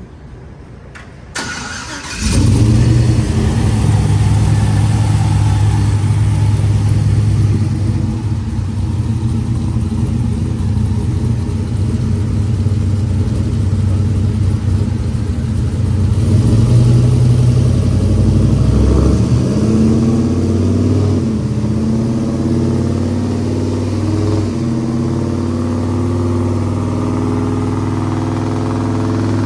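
Turbocharged LS V8 in a pickup truck starting up: a brief crank, then it fires about two seconds in and runs at a loud, choppy idle. The idle note shifts and becomes steadier in the last third.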